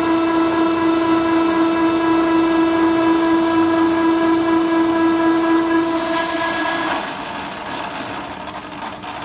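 Milling-machine cutter cutting a bolt hole in a thick steel plate, giving a steady, high-pitched squeal with overtones. About six seconds in the squeal stops with a brief hiss, and the machine runs on more quietly.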